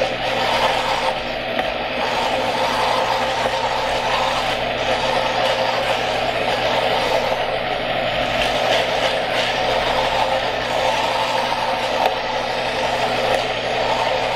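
Vitamix blender motor running steadily at low speed, churning thick soaked macadamia nut paste while a tamper pushes the mixture down into the blades.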